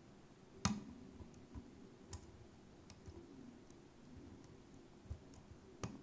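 Lock pick raking and lifting the pins of an old Zeiss Ikon five-pin cylinder lock under tension: scattered small sharp clicks, the loudest about half a second in.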